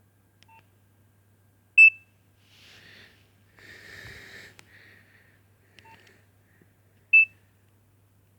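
Nokia 2610 mobile phone giving short, high electronic beeps: two loud ones about five seconds apart, with fainter blips and a soft hiss between them.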